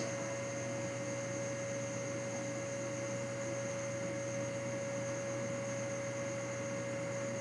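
Steady electrical hum with a faint high whine over light hiss, unchanging throughout, with no tool or engine sounds.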